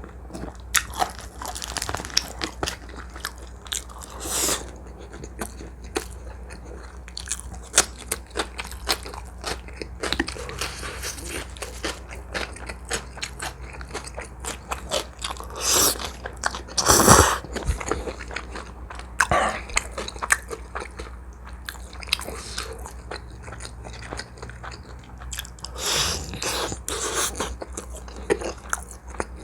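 Close-miked eating: a person chewing and biting, with many small wet mouth clicks and a few louder bites or slurps, the loudest about 17 seconds in.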